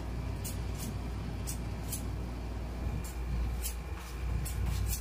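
Barber's scissors snipping hair over a comb: a string of short, crisp snips, roughly two a second, over a steady low hum.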